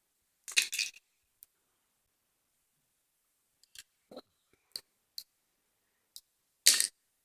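Slime being squished and poked: two short crackling squelches, one about half a second in and one near the end, with a few sharp clicks and pops between them.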